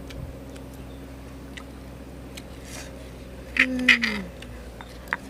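A boy crunches into rattan fruit with two short crisp crackles about three and a half seconds in, alongside a brief falling hum from his voice, over a faint steady low hum.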